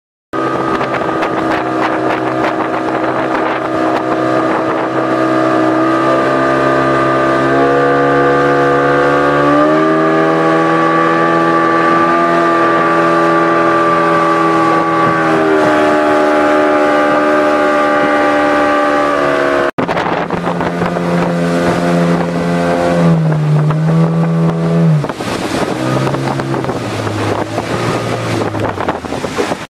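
Motorised watercraft engine running hard, its pitch shifting up and down as the throttle changes. It cuts out for an instant about 20 seconds in, then runs on and winds down in steps near the end.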